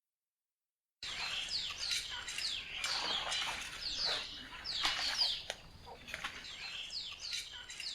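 Small birds chirping: many quick, repeated calls that sweep down in pitch. They start about a second in.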